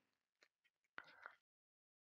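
Near silence: a pause between narrated lines.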